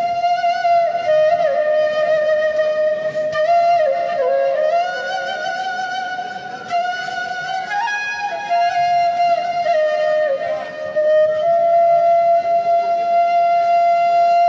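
Instrumental ringtone music: a slow solo flute melody of long held notes with sliding ornaments between them.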